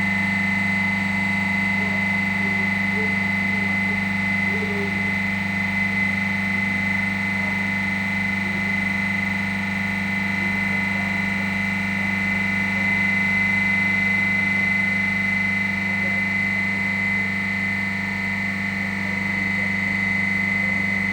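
Dorin H2500CC semi-hermetic piston compressor running steadily on its post-rebuild test, a steady low hum with a high whine over it.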